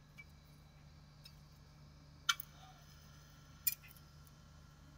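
Two sharp clicks about a second and a half apart, with a few fainter ticks, over a faint steady low hum.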